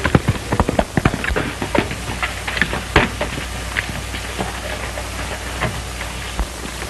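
Crackle and pops of a worn early-1930s film soundtrack: irregular sharp clicks, thickest in the first couple of seconds, over a steady low hum.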